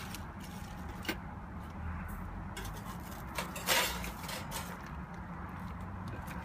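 Stainless-steel wire rack of a portable fish smoker being handled and set into its stainless tray: a few light metal clicks, then a louder metallic scrape and rattle about three and a half seconds in as the rack goes into the tray, over a steady low hum.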